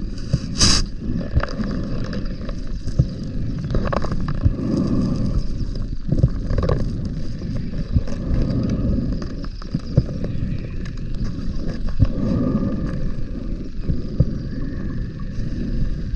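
Scuba diver breathing underwater: low rumbling surges of exhaled bubbles about every four seconds, with short hisses from the regulator and small knocks of gear.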